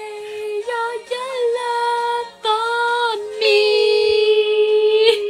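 A woman's high voice singing sustained notes, with a short break midway and then one long held note near the end.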